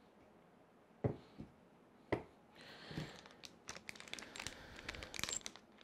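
Small hardware parts being handled on a table: two light knocks as parts are picked up and set down, then a brief plastic crinkle and a quick run of small clicks as the pieces are sorted in the hands.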